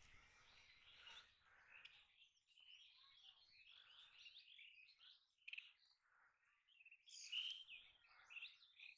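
Faint small birds chirping and twittering continuously, a little louder about seven seconds in. A faint low rumble is there in the first two seconds.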